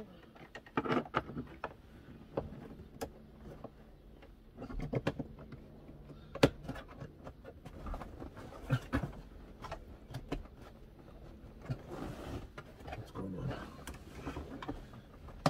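Scattered light clicks, knocks and rustles of wiring and plastic connectors being handled and plugged in behind a van's stripped-out dashboard, with one sharper knock about six and a half seconds in.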